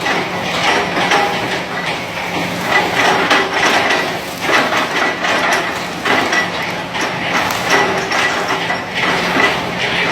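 Sumitomo SH130 hydraulic excavator working: its diesel engine running steadily under load, with irregular knocks and crunching from the digging work.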